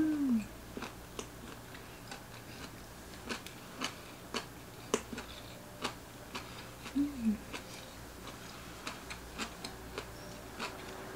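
Close-mouthed chewing of gimbap: scattered, irregular soft mouth clicks and smacks, with a short falling 'mm' hum near the start and again about seven seconds in.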